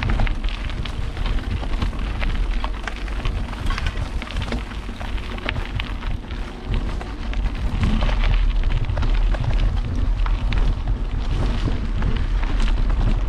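Mountain bike being ridden along a forest dirt trail. Wind buffets the camera's microphone with a heavy low rumble, while the tyres run over the ground and the bike rattles with many short clicks and knocks.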